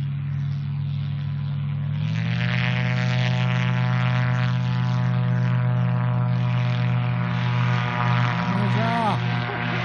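Gyrocopter engine and propeller running steadily, then opened up to takeoff power about two seconds in, the pitch stepping up and holding there for the takeoff.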